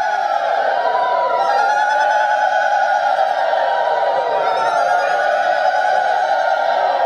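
Several voices singing Sanskrit scripture verses together to a slow devotional melody, in long held notes that slide gently in pitch.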